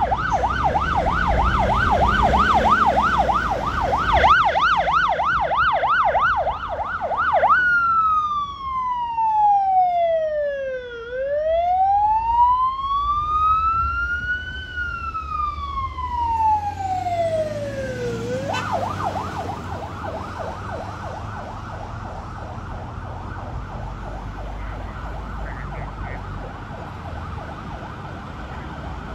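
Fire truck's electronic siren on an emergency response: a fast yelp of about four sweeps a second, switching about seven seconds in to a slow wail that falls, rises and falls again, then back to the fast yelp at about eighteen seconds, growing quieter as the truck drives away. Engine and road noise run underneath.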